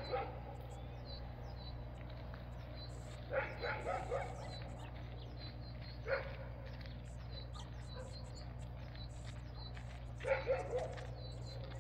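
Short, sharp animal calls in clusters of two to four, spaced a few seconds apart, over faint high bird chirps and a steady low hum.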